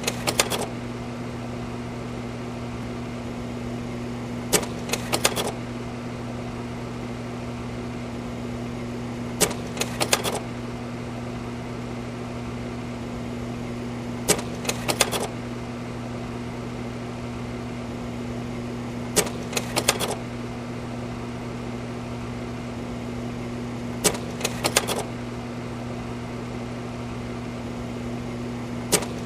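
Slide projector running with a steady fan and motor hum. About every five seconds its slide-change mechanism clatters through a short burst of several clicks as it advances to the next slide.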